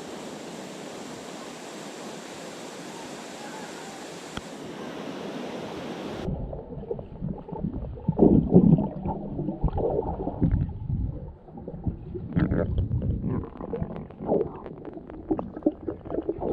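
Water cascading into a rock pool, a steady rushing hiss. About six seconds in it cuts abruptly to muffled underwater sound: irregular gurgles and low thumps of a swimmer moving through the water.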